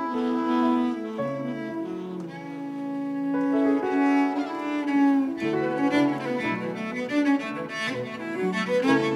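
Live instrumental music on bowed cello, fiddle, tenor saxophone and piano, with the cello to the fore. Long held notes give way to quicker, busier playing about three and a half seconds in.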